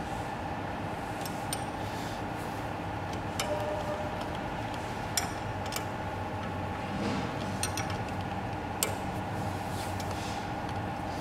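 Sharp metallic clicks, a handful spaced a second or two apart, as a hex key works the bolts clamping the knives in a CNC wood lathe's tool holders, over a steady electrical hum.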